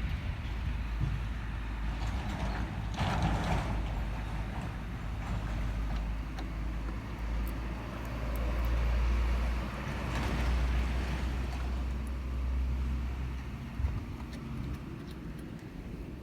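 Heavy diesel engine idling with a steady low drone, with two swells of hiss about 3 and 10 seconds in. The drone drops away after a knock about 14 seconds in.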